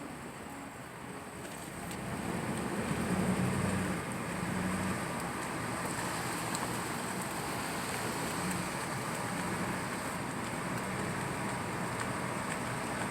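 Car driving: steady engine and road noise, growing louder about two seconds in.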